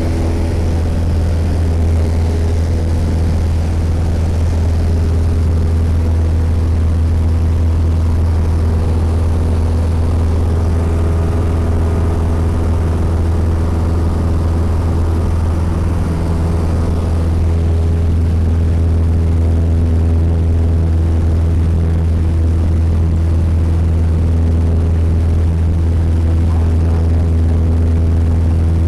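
Cessna single-engine light aircraft's piston engine and propeller running steadily in flight, heard from inside the cabin as a loud, deep, even drone with steady overtones. The engine tone shifts slightly about halfway through.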